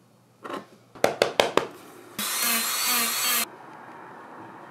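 Four sharp clicks or taps in quick succession, then a small power tool runs loudly for just over a second and stops abruptly.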